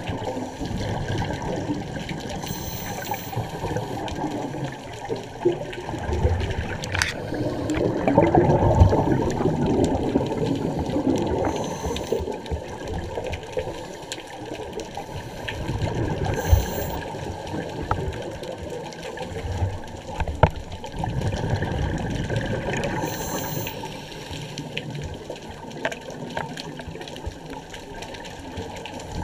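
Scuba diver breathing through a regulator underwater, muffled by the camera housing: a bubbling rush of exhaled air swells up every several seconds over a steady low underwater rumble.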